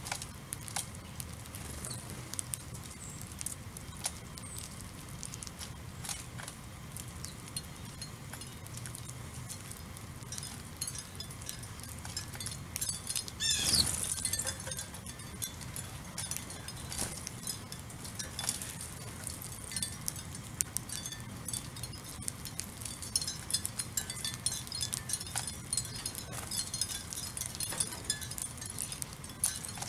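House sparrows pecking at birdseed on pavement: a busy stream of small sharp clicks, with short high chirps. About halfway through there is a brief rush as the flock takes off all at once, and the pecking and chirping pick up again in the second half.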